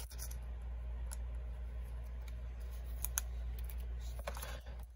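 Light plastic rustles and small clicks as a trading card is handled and slid into a thin clear plastic penny sleeve, a few at a time with a cluster near the end, over a steady low hum.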